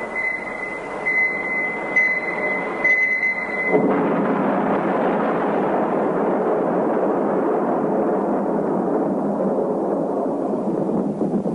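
A high electronic beep repeating about once a second, then about four seconds in the sudden deep rumble of a nuclear test explosion, which rolls on and slowly fades.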